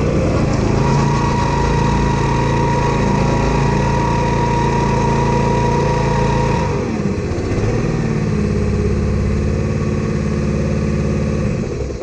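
A vehicle engine running steadily under load, with a high steady whine over it for the first half. The engine speed dips and recovers about seven seconds in, then eases off near the end.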